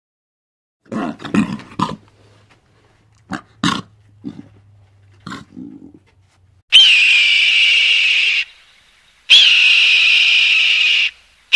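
Lions growling in short rough bursts, then a hawk giving two long, loud screeches, each held at a steady high pitch for nearly two seconds.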